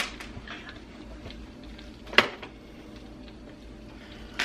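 Quiet kitchen room tone broken by a single sharp click or knock about halfway through, with another at the very end as kitchen things are handled.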